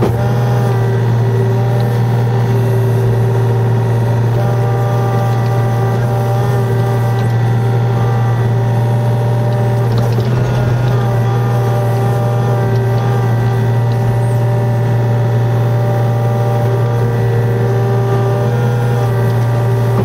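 Yanmar VIO35 mini excavator's diesel engine running steadily under load, with a hydraulic whine whose tones shift as the boom and bucket move. The bucket digs into the soil about halfway through.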